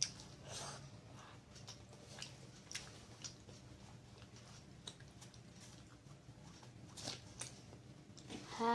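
Close-up chewing and biting of a spicy meat-filled mini kebab: soft wet mouth sounds and scattered small clicks, with a light rustle of the paper wrapper as it is handled.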